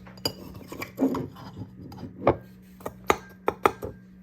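Handling of takeout containers and dishes: scattered light knocks and clicks, a dozen or so, the sharpest between two and four seconds in, over a steady low hum.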